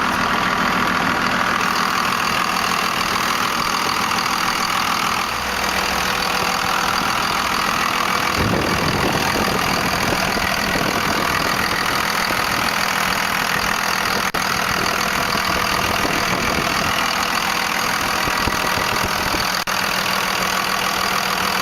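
1998 Dodge Ram 2500's 5.9-litre Cummins inline-six turbo diesel idling steadily.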